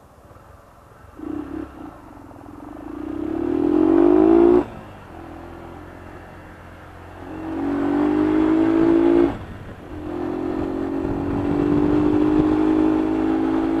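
Motorcycle engine heard from the rider's seat, pulling away: the revs climb, drop sharply at a gear change about four and a half seconds in, climb again, drop at a second gear change just past nine seconds, then hold nearly steady as the bike cruises.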